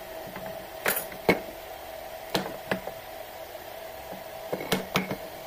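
Wooden boards knocking against each other and the workbench as they are handled and set down: a series of short, sharp knocks, the loudest about a second in, over a steady faint hum.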